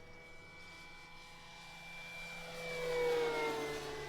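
Electric motor and propeller of a 2-metre RC Cessna 182 model whining steadily as it flies by. It grows louder to about three seconds in, then drops in pitch as it passes.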